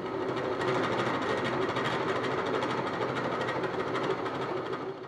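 Drill press running with a large twist drill cutting into a brass valve block, drilling out the remains of a broken steel fitting. A steady motor hum sits under a fast, even chatter from the cut.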